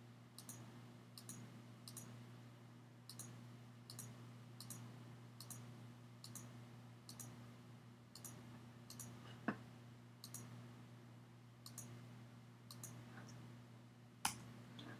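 Faint computer mouse clicks, one or two a second, with two sharper clicks late on, over a steady low electrical hum.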